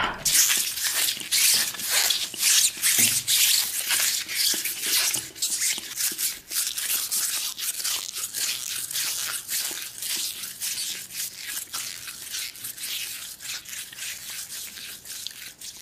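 Close-miked ASMR biting and chewing of a green pear with a creamy filling. It is a dense run of crunchy, crackling mouth sounds that starts with the bite and slowly grows quieter.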